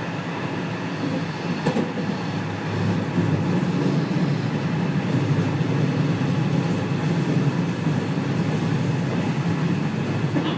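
Running noise heard inside a JR West 207 series electric commuter car (KuMoHa 207-1037) on the move: a steady rumble of the motors and wheels on the rails, growing a little louder about three seconds in.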